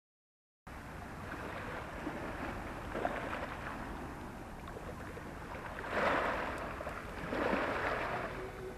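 Small waves washing onto a beach of rounded cobbles: a steady hiss with fine crackling of water running among the stones. It starts after a moment of silence and swells twice near the end as larger swashes come in.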